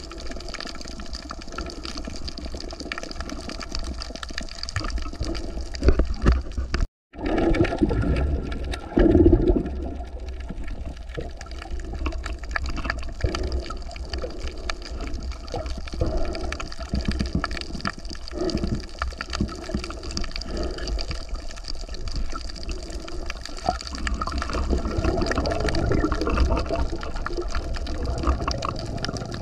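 Moving water: a continuous wash with louder swells now and then. The sound cuts out completely for a moment about seven seconds in.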